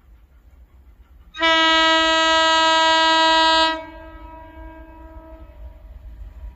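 HXD1 electric locomotive's horn sounding one long steady blast of about two seconds, which cuts off and echoes briefly. A low rumble of the approaching train follows, slowly growing.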